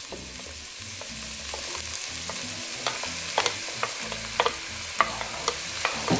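Onions and bell peppers frying in oil in a hot pot, sizzling steadily, as sliced carrots are tipped in from a wooden board and the mix is stirred with a wooden spoon, giving scattered clicks and knocks.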